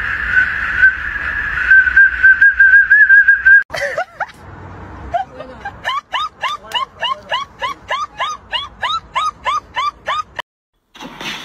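A whistle held in a German shepherd's mouth sounds one long, slightly wavering tone. After a break, a greyhound gives a quick run of short, whiny yips, about three or four a second.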